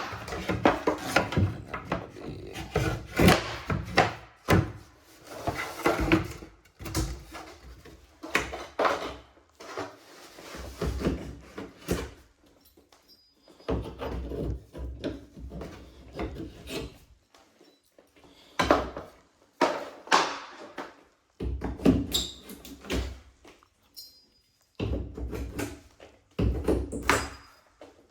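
Wood knocking, scraping and rubbing in irregular bursts a second or two long with short pauses between: wooden trim or drawer parts being handled and worked.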